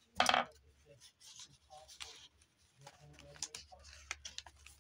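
Paper rustling and rubbing as journal pages and paper pieces are handled, with a brief loud scrape about a quarter second in and scattered light taps in the second half.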